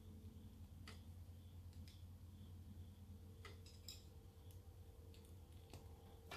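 Faint scattered clicks and ticks of snap-fit plastic model-kit parts being handled and pressed together, about eight spread irregularly, over a low steady hum.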